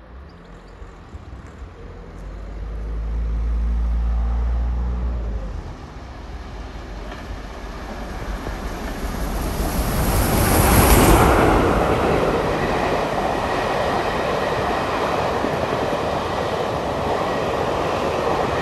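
Steam locomotive 34046 Braunton, a rebuilt Bulleid West Country class Pacific, hauling a passenger train past at speed: its sound grows as it approaches, is loudest as the engine goes by about ten seconds in, then gives way to the steady rush and rattle of the carriages rolling past.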